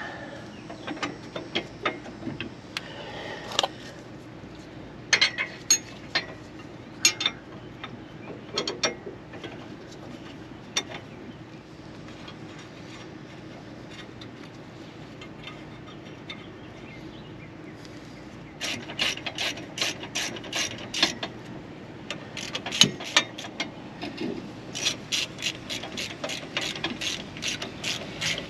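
Scattered metal clinks and taps through the first ten seconds, then two runs of quick ratchet-wrench clicking, about six clicks a second, in the last ten seconds as the U-bolt nuts on a trailer leaf spring are snugged down.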